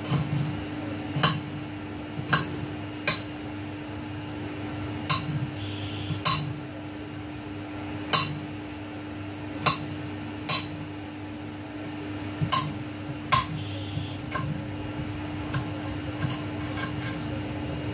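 Kitchen knife slicing and dicing fresh ginger on a hard board: about a dozen sharp knocks at irregular intervals over a steady low hum. The knife is an old cheap one that the cook suspects has gone blunt.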